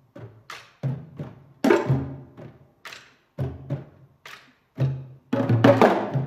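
Ensemble of hand drums, djembes among them, playing separate struck notes with deep ringing bass tones, about two a second. A denser, louder flurry of strokes comes about five seconds in.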